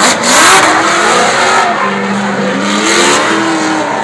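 Drift cars' engines revving as they slide in tandem, pitch rising and falling and held steady for a second or so midway, with tyre noise.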